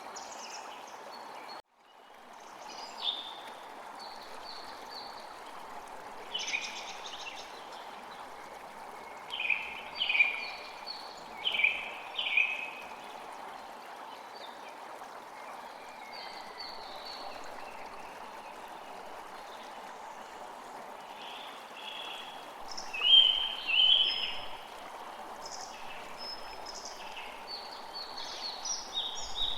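Songbirds chirping and calling in short clusters over a steady rushing background noise, the loudest calls about two-thirds of the way through. The whole sound cuts out for a moment about two seconds in.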